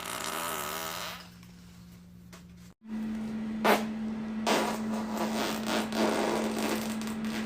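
A person farting, with a wavering pitch that trails off about a second in. After a sudden cut comes a longer stretch of hissing, crackling noise with a couple of sharper pops, over a steady electrical hum.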